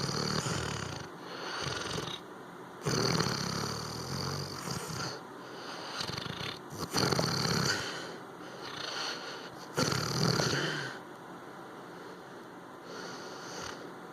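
Labrador retriever snoring in its sleep: about five rasping snores, one every three seconds or so, the last one fainter.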